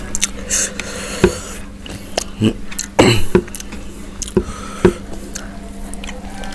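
Close-miked chewing and biting of fried chicken: wet mouth sounds and sharp clicks, the loudest bite about three seconds in, over a steady low hum.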